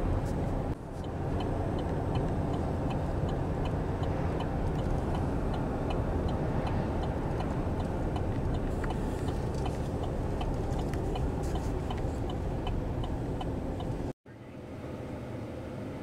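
Car driving along a highway, a steady road and engine noise heard from inside the moving car, with a faint regular ticking about twice a second. The sound cuts out abruptly near the end.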